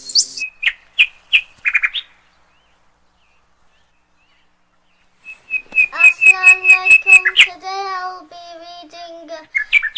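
Bird-like chirping in quick runs of short high calls, silent for about three seconds in the middle, then a fast run of chirps about halfway through that gives way to longer wavering pitched notes near the end.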